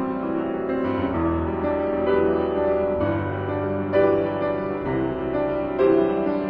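Instrumental background music led by piano, with sustained chords over a low bass that change every second or two.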